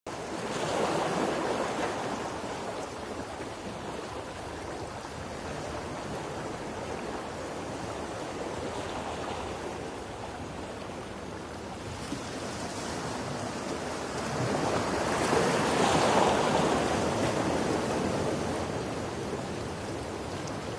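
Ocean surf, a steady rushing hiss of waves that swells about a second in and again for a few seconds past the middle.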